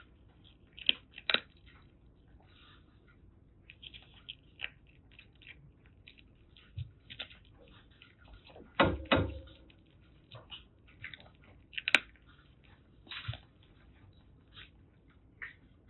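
A kitten crunching dry kibble: irregular small crunches and clicks, with a louder clatter about nine seconds in and a sharp click near twelve seconds.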